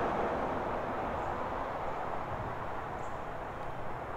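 Steady outdoor rushing noise, easing off slightly, with no distinct events in it.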